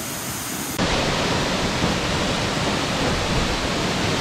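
Virginia Falls waterfall: the steady rush of falling water. It jumps suddenly louder and fuller a little under a second in.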